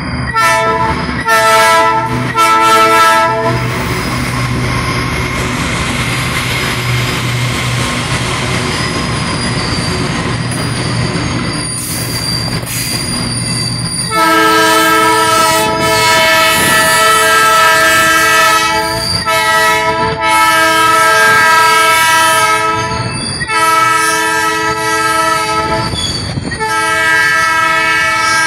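Two GE C40-8W diesel-electric freight locomotives passing close, sounding a multi-chime air horn. Three short blasts come in the first few seconds, then the diesel engines rumble as the train approaches. About halfway through the lead locomotive reaches the camera and the horn is held in long, loud blasts with short breaks.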